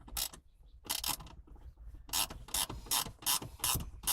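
Hand ratchet wrench clicking in short back-and-forth strokes as it runs a 12mm nut down on the short shifter's bolt. A couple of strokes, a brief pause about a second in, then regular strokes about three a second.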